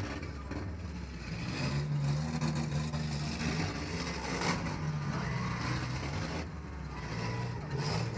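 1997 Ford Ranger demolition-derby truck's engine running, heard from inside the cab, its pitch stepping up and down as the throttle changes. A single sharp bang about four and a half seconds in.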